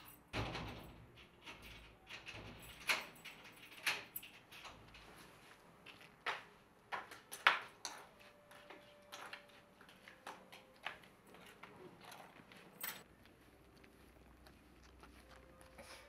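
A metal door being handled: scattered sharp knocks and clanks at irregular spacing, the loudest about seven and a half seconds in.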